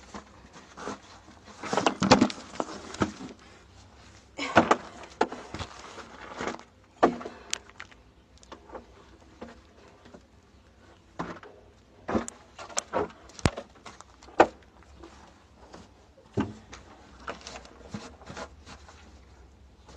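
Hand digging in dry, stony soil: a metal-headed digging tool strikes and scrapes the earth in an irregular series of sharp knocks. Longer scraping scoops come about two seconds in and again near five seconds.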